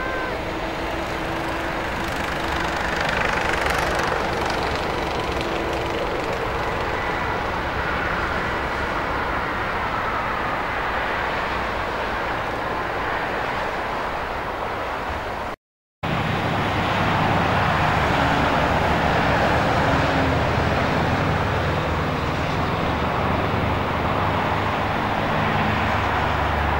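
Boeing 747-400's four jet engines running at low power as the aircraft taxis: a steady rush with a faint high whine. The sound drops out briefly about halfway through, then the same steady engine noise returns, heavier in the low end.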